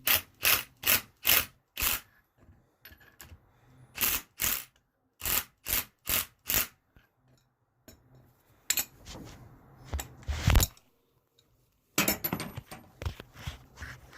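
Sharp metallic knocks from driving in a flywheel puller's centre bolt against the crankshaft, coming in quick runs of about three a second with pauses between them. The loudest knocks come about ten seconds in.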